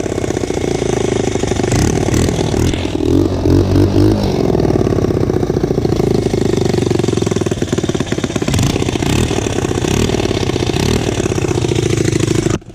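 Honda dirt bike engine running, revved briefly about three seconds in, with a leak at the exhaust gasket that the rider hears as a still-present exhaust leak.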